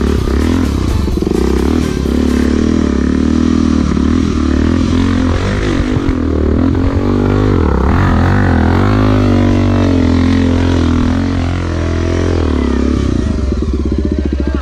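Honda XR250 Tornado's single-cylinder four-stroke engine pulling up a trail climb, its revs rising and falling as the throttle is worked and held high for a stretch in the middle. The rider says the bike is down on power, with the carburettor sticking.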